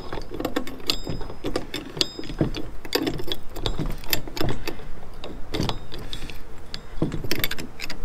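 Steel wrench clicking and clinking against the top nut of a coilover as the nut is tightened down. The clicks come irregularly, several a second, some with a short metallic ring.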